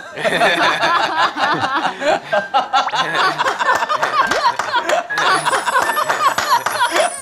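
Several people laughing and chuckling together, with some hand clapping.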